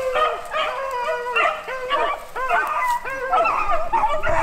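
A pack of beagles baying as they run a rabbit's trail, several hounds' voices overlapping in quick, repeated calls.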